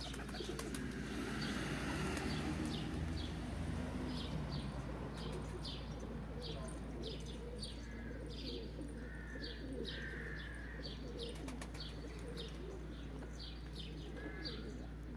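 Van pigeons cooing on the ground, with wings flapping in the first few seconds as a bird lands. A small bird chirps over them about twice a second throughout.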